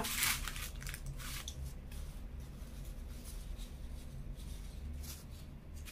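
Eating sounds: a paper burger wrapper rustling and faint chewing, in a few short scratchy rustles over a low room hum.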